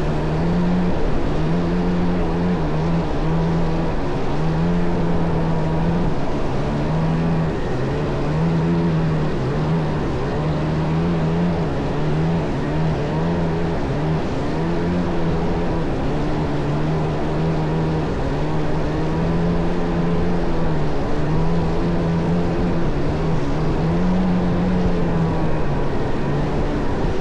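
Kawasaki JS550 stand-up jet ski with a swapped-in 650 two-stroke twin running under way. Its engine pitch rises and falls every second or two.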